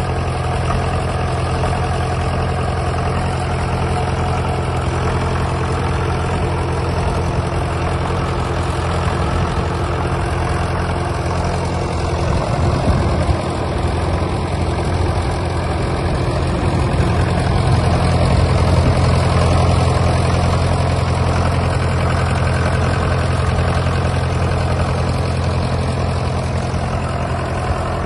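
1958 Fordson Major tractor engine idling steadily, with a slight swell in loudness for a few seconds around the middle.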